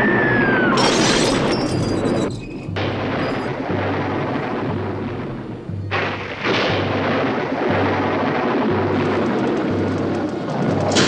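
Dramatic film-score music with a low pulse about once a second, layered with booming and crackling electrical sound effects as the laboratory apparatus sparks. A short falling tone comes right at the start.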